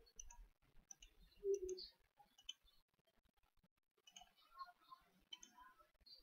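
Faint computer mouse clicks scattered through near silence, with a soft low thump about one and a half seconds in.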